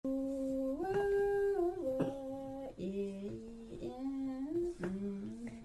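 A woman's voice singing a slow melody in long held notes, stepping up and down in pitch.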